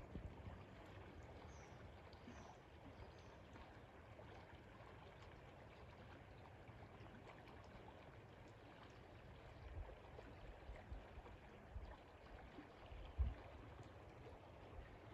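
River water flowing, a faint steady rush. A couple of faint high bird chirps come near the start, and several low bumps sound in the second half.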